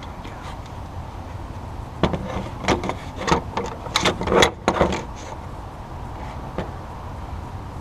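A run of sharp clicks and knocks lasting about three seconds, starting about two seconds in, as small car parts and tools are handled, over a steady low hum.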